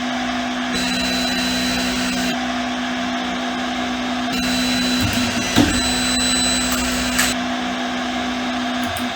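3D printer running, its stepper motors humming with high whining tones that switch on and off as the moves change, over a steady fan-like rush. A short knock about halfway through and a smaller one a little later.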